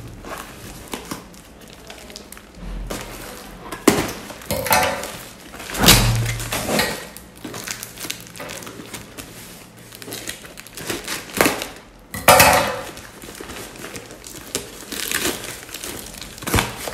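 A delivered parcel being opened and its packaging handled, in irregular loud bursts with a few sharp knocks.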